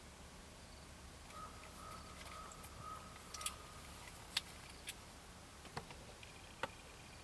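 Quiet outdoor ambience: a faint, drawn-out call or whistle for about two seconds, then five sharp clicks, with a fainter high tone near the end.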